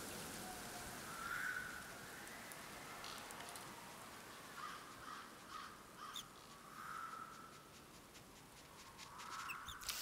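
Faint cartoon sound effects for a small bird: a few short, soft squawks and tiny high chirps and ticks over a low, steady hiss.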